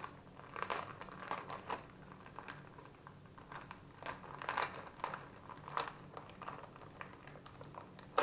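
Gift wrapping paper crinkling and tearing in irregular bursts as a package is unwrapped by hand.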